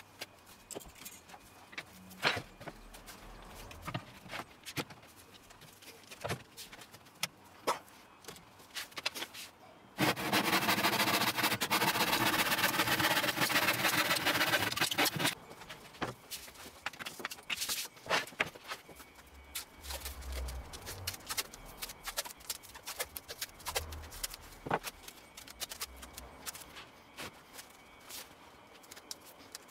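Hand saw cutting through a large wooden sheet, a dense steady rasp for about five seconds in the middle. Before and after it come scattered light taps and knocks of a ruler, pencil and clamp being handled on the bench.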